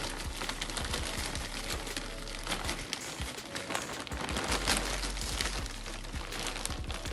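Rustling and handling noise with many small clicks and knocks throughout.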